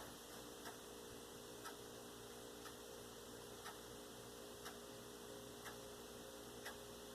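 Faint, even ticking, one tick a second like a clock, over a steady low electrical hum.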